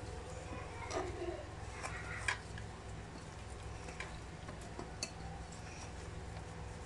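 Faint, scattered clicks and knocks as raw chicken drumsticks are mixed by hand in a steel pot, over a steady low hum.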